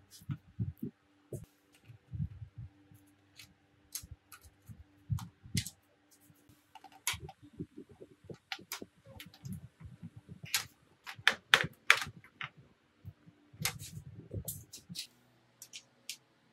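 Irregular clicks, taps and knocks of a nut driver and small parts on a sheet-metal power stabilizer case as rotary switches and knobs are fitted to its front panel, loudest about eleven to twelve seconds in.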